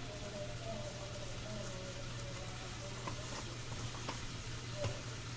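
Meat sizzling in a frying pan on the stove, a steady hiss over a low hum, with a few light clicks, the sharpest a little before the end.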